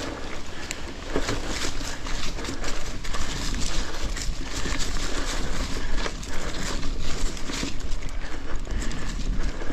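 Mountain bike ridden over a rocky trail strewn with fallen leaves: a dense, irregular clatter of tires knocking over rock and roots, with rattles from the bike, over a steady low rumble.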